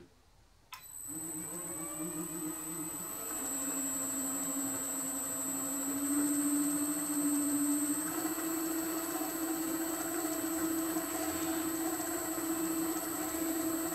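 Electric motor of a powered lathe slotter, fed by a variable frequency drive (VFD), starts under power and spins up, running the slotter through its timing belt with a steady hum and a high-pitched whine from the drive. Its speed is set on the drive's keypad: the hum drops in pitch about three seconds in and rises again about eight seconds in.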